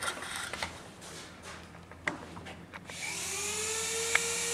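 Light clicks of metal tool parts being handled on a workbench, then about three seconds in a steady power-tool whine starts and grows louder.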